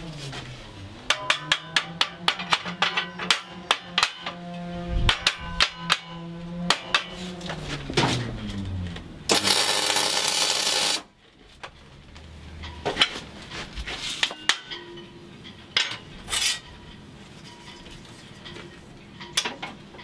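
Background music with a sharp percussive beat, then about nine seconds in a MIG welder's arc crackles for under two seconds as a short weld is laid on the aluminium door frame.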